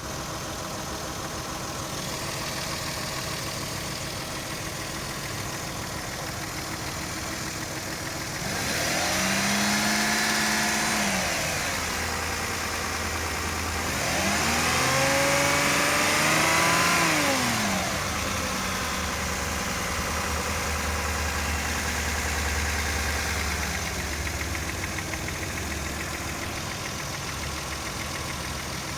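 Toyota 1MZ-FE 3.0-litre V6 idling, revved up twice and let fall back to idle. It has a strange knock that appeared after an engine rebuild.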